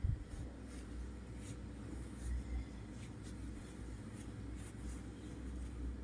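Quiet room background: a steady low hum with a few faint, scattered ticks.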